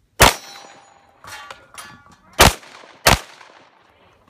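Three gunshots, one near the start and two close together later, with steel targets ringing after the hits.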